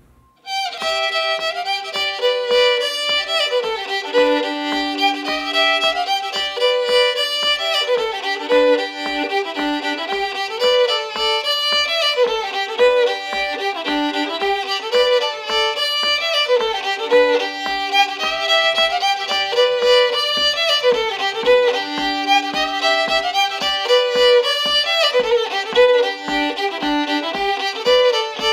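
Solo fiddle playing an old-time tune with quick, repeating phrases, starting about half a second in. A steady low thump keeps the beat underneath.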